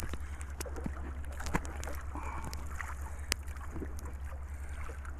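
Wind and choppy water around a small outrigger fishing canoe: a steady low rumble with scattered light knocks and clicks as the line to a fish trap is hauled in over the bow.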